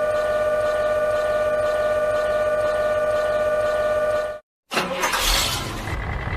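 A steady, unchanging pitched drone that cuts off suddenly about four seconds in. After a brief silence, a car engine starts with a loud burst and settles into a low running rumble.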